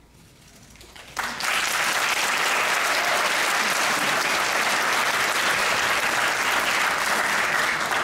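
Audience applause that starts suddenly about a second in and stays loud and steady, marking the end of the dance piece.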